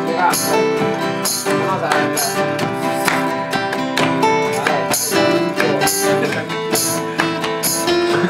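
Acoustic guitar strumming chords in an instrumental intro, with hand claps keeping the beat about once a second.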